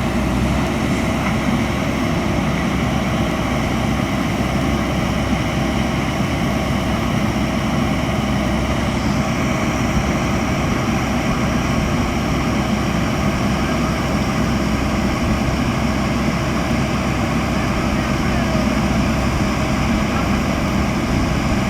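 Engine running steadily at one unchanging pitch, with no knocks, clanks or changes in speed.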